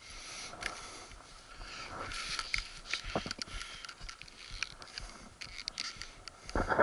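Handling noise close to the camera's microphone: irregular clicks, scrapes and rustles as the action camera and rider's gear are moved about, with one louder thump near the end.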